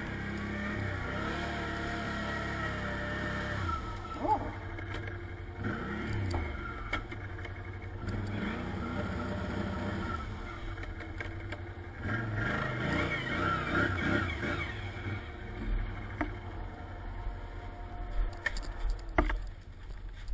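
Quad bike (ATV) engine running, its revs rising and falling several times as it pulls along a rough track. A few sharp knocks come from the bumpy ride.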